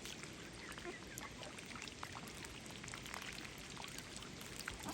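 Wild ducks splashing and dabbling in shallow water: a faint, busy patter of small splashes and clicks.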